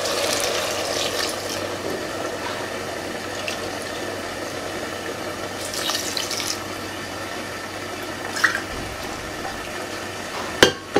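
Water being poured from a cup into an aluminium pressure cooker of rice and vegetables: three cups' worth, a steady splashing pour, with a few light knocks and one sharp knock near the end.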